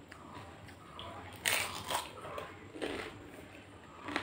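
A crisp fuchka (pani puri) shell soaked in spiced water crunched between the teeth, with two loud crunches about one and a half and two seconds in, then softer chewing crunches.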